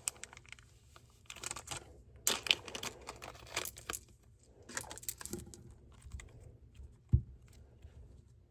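Hands handling the Fruit Loop slime charms: several short bursts of crinkling and rustling, with one sharp tap about seven seconds in.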